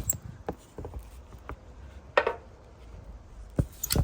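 Scattered clicks and knocks from a cargo strap and its metal hook and buckle being handled while a pallet is strapped down, with a louder clank a little past the middle and a couple more near the end.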